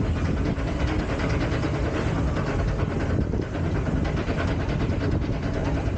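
Spinning wild-mouse coaster car being hauled up the lift hill by its chain lift: a steady mechanical rattle of rapid clicks over a low rumble.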